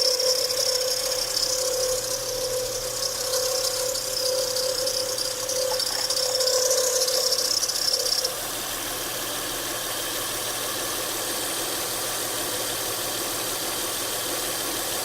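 The 3.5-litre V6 of a 2007 Acura TL Type S running, with a steady whine and rattle from a bad belt tensioner bearing. About eight seconds in the whine cuts off and the engine runs on more quietly.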